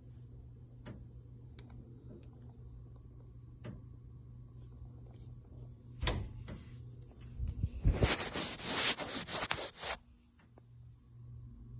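Knocking and banging from a condo ceiling: a few faint knocks, a sharper bang about six seconds in, then a loud two-second burst of rapid knocks and rattling.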